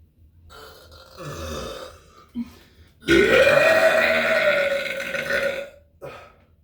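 A person's long, loud, deliberate burp of nearly three seconds, its pitch rising quickly at the start and then holding. Before it comes a quieter, shorter breathy sound.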